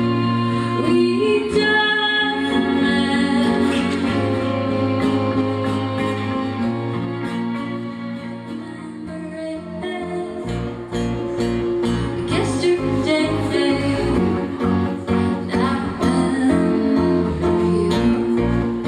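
Live band music: violin and guitars play held lines, and about halfway through the sound fills out with bass and drum hits as a woman sings over her strummed acoustic guitar.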